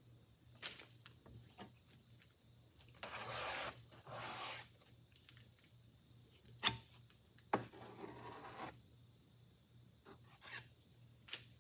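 A 4-inch drywall knife scraping Bondo body filler across a wooden door: two longer scrapes about three and four seconds in, and a few sharp ticks of the blade, two of them close together near the middle.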